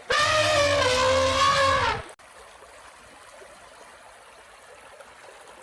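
A loud, pitched, engine-like sound with many overtones, sliding slightly down in pitch, lasts about two seconds and cuts off abruptly. After it only a faint, steady running stream is heard.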